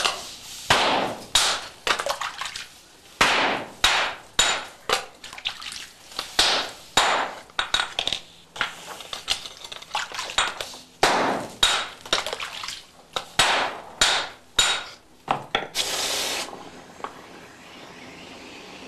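Hammers striking a red-hot tamahagane steel wafer on a water-sprinkled anvil, in sharp, uneven blows of roughly two a second. This is mizuuchi: the water under the steel flashes to steam with each blow, and together with the shock this peels the scale and impurities off the surface. Near the end the blows stop and there is a short hiss.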